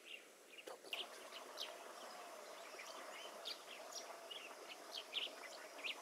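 Faint, scattered chirps and short calls from several small birds, quick high notes coming every fraction of a second, over a faint steady hum.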